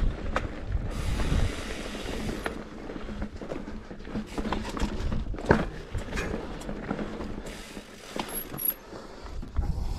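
Mountain bike rolling over rough singletrack: irregular clicks, knocks and rattles from the bike, with a louder knock about halfway through.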